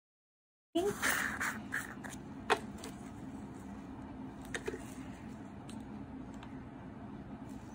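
Small clicks, taps and scrapes of nail acrylic supplies being handled on a tabletop (powder jars and a brush), the sharpest click about two and a half seconds in, over a steady low hum. The sound cuts in abruptly from silence under a second in.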